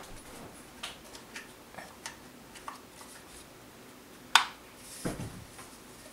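Small plastic clicks and taps from handling a Google Wifi unit and plugging its power cable into the port on its base, with one sharp click about four seconds in and a soft thump a moment later.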